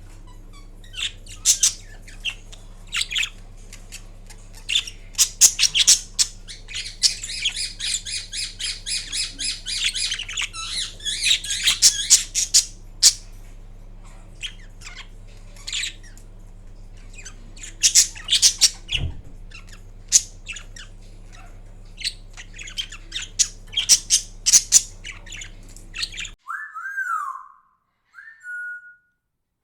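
Indian ringneck parakeet making scattered sharp squeaks and clicks, with a stretch of rapid chattering about seven seconds in: the soft sounds it makes while napping. A steady low hum runs underneath. Near the end the hum cuts off and two short gliding whistles follow.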